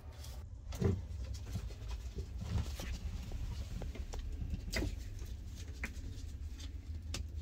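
Scattered light clicks, taps and rattles of hands working at a car's wiring harness and its plastic connectors, over a low steady hum.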